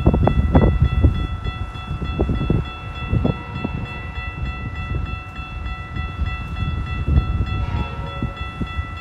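Wind buffeting the microphone in heavy, uneven gusts, over the steady ringing of railroad crossing warning bells as a train approaches.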